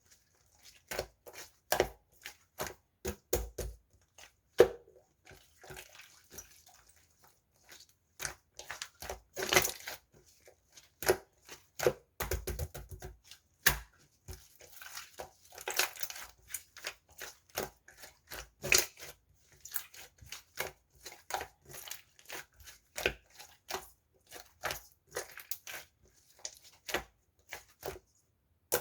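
Water-jelly sherbet slime being squished and worked by hand, giving many sharp, irregular crackling clicks and pops.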